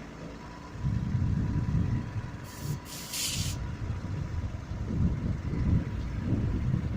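A heavy engine working under load as the lifting machine lowers the pipe, its low rumble jumping up about a second in. A short burst of air hiss comes a couple of seconds later.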